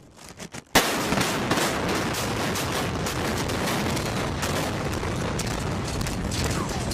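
Explosive demolition of a building: a few faint pops, then a sharp bang about three-quarters of a second in, followed by a long, dense crackle of rapid blasts and rushing noise.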